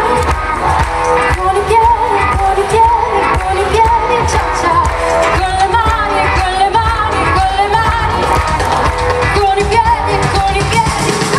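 Live pop band playing through a PA, with drums, bass and a sung melody that wavers up and down over it, heard from among the audience.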